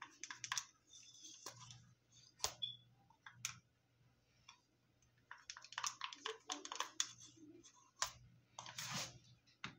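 Irregular light clicks and taps in short clusters, as black paint is flicked from a stick or brush and spattered onto a pour-painted canvas, with a quieter stretch around the middle.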